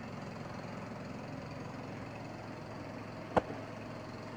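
Portable generator's small engine running steadily, with one sharp click about three and a half seconds in.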